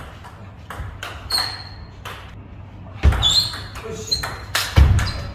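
Table tennis rally: the celluloid ball clicking off paddles and table, sparse at first and coming quickly from about three seconds in. It is mixed with a few short high squeaks and heavy thuds from the players' footwork on the hall floor.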